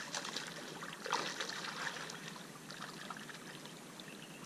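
Legs wading through shallow river water, with irregular splashes and sloshing at each step. The splashing is strongest in the first couple of seconds and softer after that.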